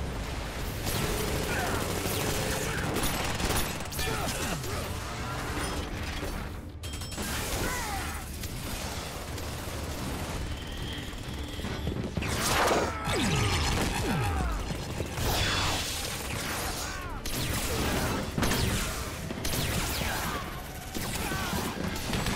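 Film battle sound effects: sci-fi energy-weapon blasts and zaps with gunfire over a dramatic score, with several sharp hits and falling zaps, busiest about halfway through.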